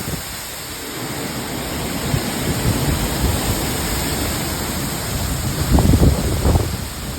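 Hurricane-force wind with rain: a steady, loud rushing hiss, with gusts buffeting the microphone in low rumbles about six seconds in.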